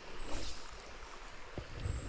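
Steady rush of river water with low wind buffeting on the microphone, and a single light knock about one and a half seconds in.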